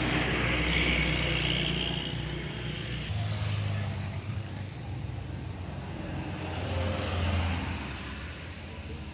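Road traffic passing close by: engine hum with tyre and road noise, swelling as vehicles go past, loudest about a second in and again around seven seconds in.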